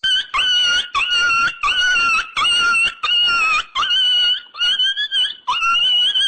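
A high-pitched squeaking call repeated about eight times in quick succession. Each call lasts about half a second and starts with a short upward slide before holding its pitch.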